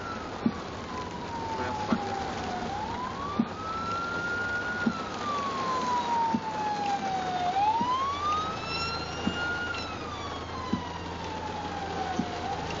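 Emergency vehicle siren wailing, heard from inside a car: a slow tone that climbs for about two seconds and falls for about two and a half, cycling about two and a half times. It is loudest around the middle.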